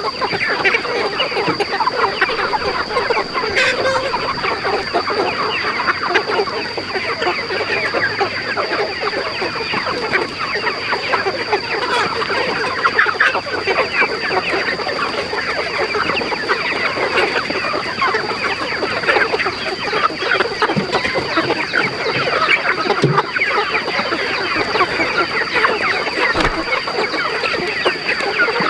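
A large flock of chickens clucking and calling all at once, many overlapping calls without a break, over a steady high-pitched whine.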